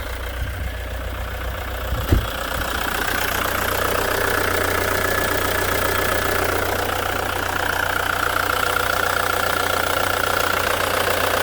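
Ford Mondeo Mk3 engine idling steadily just after starting, with the EGR valve's vacuum line disconnected; the knocking that the owner traced to a failing EGR valve is gone. One short sharp knock about two seconds in.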